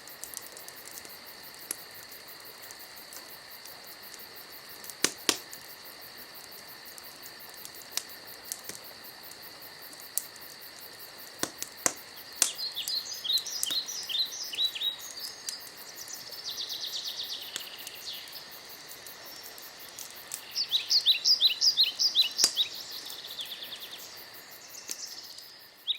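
Birds calling in two runs of quick, falling chirps, with a short buzzy trill between them, over a steady high-pitched drone. A few sharp clicks sound earlier, before the chirping starts.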